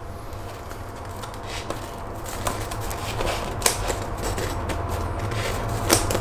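Freshly baked pizza being handled: scattered crisp crackles and clicks from the hot crust, growing more frequent from about halfway through, over a steady low hum.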